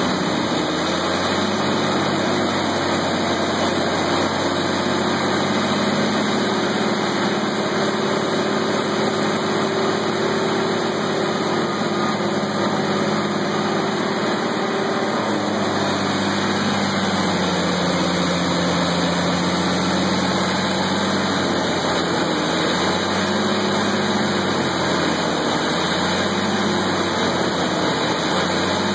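Diesel engine of a Vermeer WC2300XL whole-tree chipper running steadily, its pitch slowly wavering up and down in the second half.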